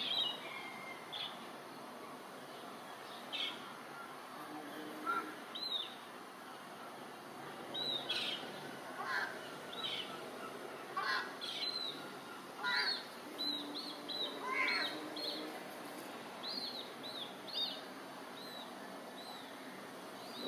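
Herring gull chicks peeping: short, high calls repeated at irregular intervals, coming more often in the second half, over a steady background hiss.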